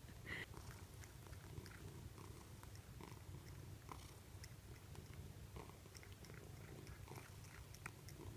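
A domestic cat purring faintly, a steady low rumble, with a few faint small clicks over it.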